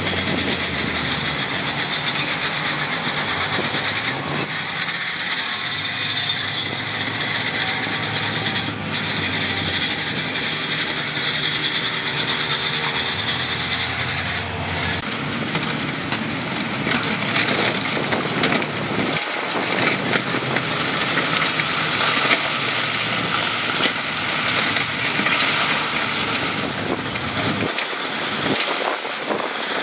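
Heavy diesel earthmoving machinery running under load: a low engine drone under a dense, steady hiss of working noise, with a sharp knock about nine seconds in.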